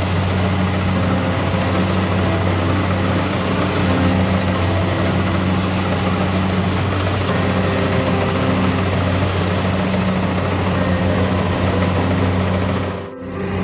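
Rice harvesting machine's engine running steadily under load, a loud even drone with a deep hum and a broad mechanical rush; the sound dips briefly near the end.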